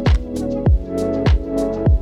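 Background music with a steady electronic beat, a kick drum about every 0.6 seconds under sustained synth tones.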